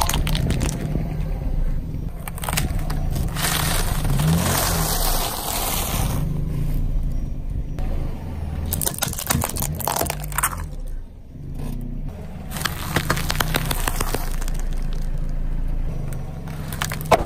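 A car tyre rolling slowly onto small plastic toys and crushing them, with a series of cracks, crunches and scrapes, over the steady low running of the car's engine.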